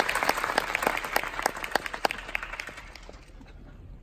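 Theatre audience applauding, the clapping thinning out and dying away about three seconds in.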